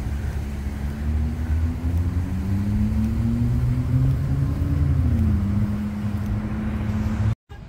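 Road vehicle engine passing by: a low hum over steady rumble, its pitch rising slowly and then dropping about five seconds in. The sound cuts off abruptly near the end.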